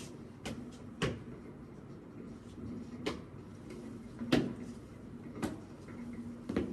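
Sharp knocks and clicks at irregular intervals, six in all, the loudest about two-thirds of the way through, each with a short ring in a small room. A faint low hum comes and goes beneath them.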